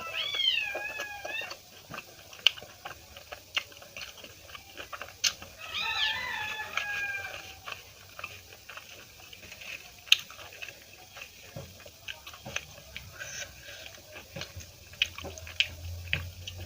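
A cat meows twice, one call at the start and another about five seconds in, each a second or two long and bending in pitch. Small clicks and smacks of someone eating run throughout.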